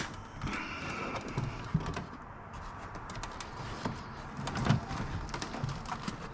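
Hands tugging at the plastic trim and carpet lining of a car's front trunk: scattered clicks, scrapes and knocks, with a short squeaky scrape about half a second in and a louder knock about four and a half seconds in.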